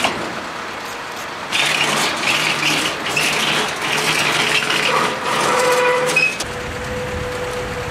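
Tow truck's winch pulling a crash-damaged car up the tilted bed, with metallic rattling and scraping. The rattling stops about six seconds in, leaving a steady hum.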